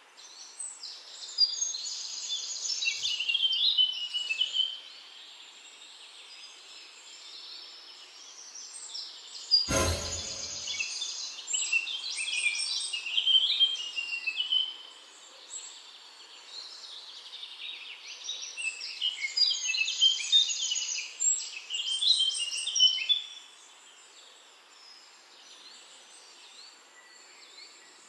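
A bird singing outdoors in three long bouts of varied, high chirping phrases over faint background hiss. A single sharp knock cuts in about ten seconds in.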